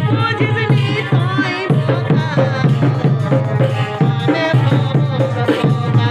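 Jhumur folk music: a steady hand-drum beat at about two strokes a second under a wavering melody line.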